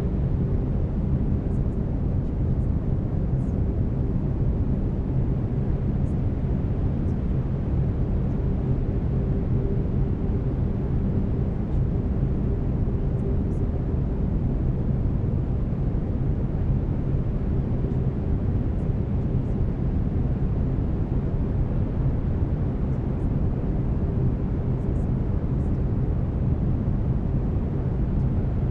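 Brown noise: a steady, deep hiss weighted toward the bass, with faint steady low tones underneath of the kind used for delta-wave binaural beats.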